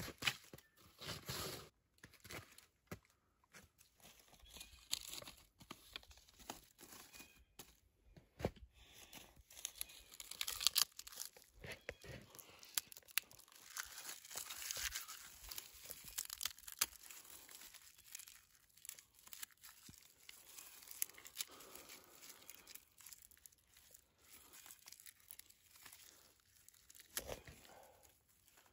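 Dry birch bark being torn into strips and crumpled by hand: a run of irregular papery rips and crackles.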